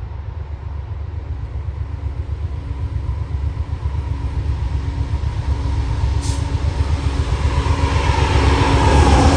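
Train approaching, its low rumble growing steadily louder, with a tone that slides down in pitch near the end as it comes past.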